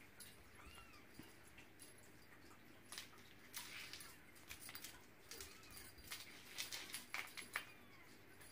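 Faint light taps and scuffles of a ragdoll kitten's paws and a feather toy on a hard floor, in a quick flurry in the middle and latter part, with a few faint short high calls.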